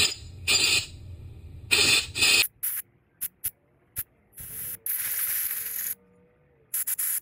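Compressed-air blow gun blowing out carburetor jets and passages freshly sprayed with carb cleaner: a string of hissing blasts of air, most short spurts and a few lasting up to about a second.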